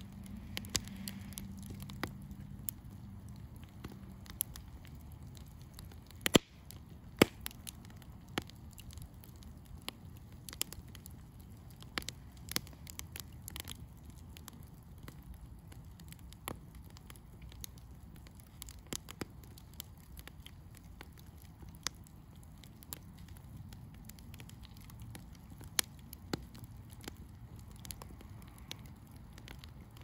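Campfire of split logs burning in a steel fire pit, crackling with irregular sharp pops; the loudest pops come about six and seven seconds in.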